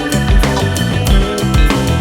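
Background rock music: guitar, bass and drum kit with a steady beat.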